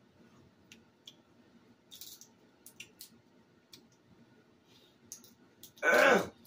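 Faint scattered clicks and crackles of crab shell being picked apart and cracked by hand, then a short burst of voice near the end, much louder than the clicks.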